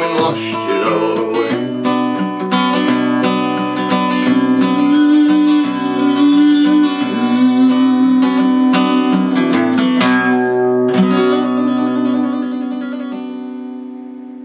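Acoustic guitar music with picked and strummed notes; near the end a last chord is left ringing and fades away.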